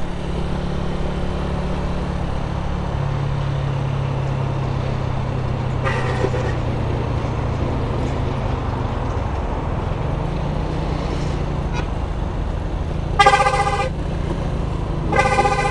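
Honda CG 125 motorcycle's single-cylinder engine running steadily at road speed, with wind and road noise. A vehicle horn sounds faintly about six seconds in, then loudly for under a second near thirteen seconds, and again just before the end.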